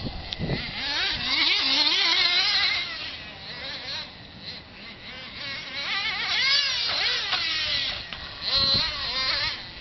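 Nitro RC stadium trucks' small glow-fuel two-stroke engines racing on a dirt track, high-pitched and rising and falling in pitch as the throttle is worked through the corners. They swell louder as the trucks pass close, about a second in, again around six seconds, and near the end.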